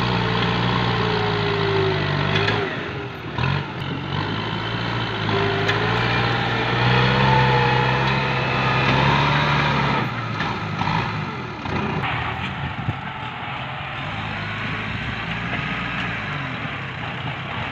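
Kubota farm tractor's diesel engine running steadily under load as its front blade pushes brush. After about ten seconds the engine sound weakens into a fainter, noisier background with scattered cracks.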